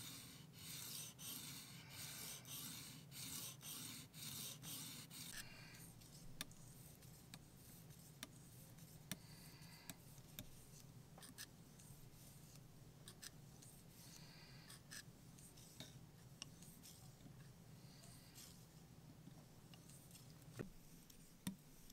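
Sharpening stone on the guide arm of a TSPROF Blitz sharpener rubbed along a clamped knife's edge, rasping at about two strokes a second for the first five seconds or so. After that only occasional faint strokes and light clicks follow.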